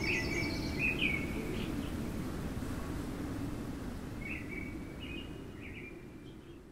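Outdoor ambience of birds chirping over a steady low background noise: a few quick chirps at the start and another group about four seconds in, the whole fading out near the end.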